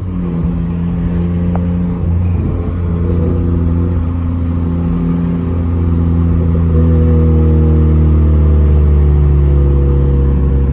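Turbocharged Honda K24 four-cylinder engine of a 2011 Accord Coupe running at fairly steady revs while driving, with a low, even drone. The owner says the engine is misfiring, likely because the turbo upgrade needs a retune.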